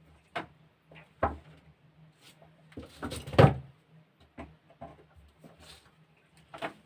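Irregular clicks and knocks of small parts being handled and pressed into place while a battery sprayer pump is reassembled, the loudest knock about three and a half seconds in.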